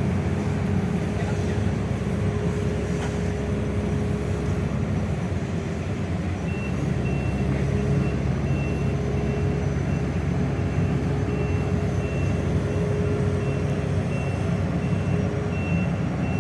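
Heavy diesel engine running steadily with a constant whine over it; about six seconds in, a backup alarm starts beeping at an even pace and keeps going.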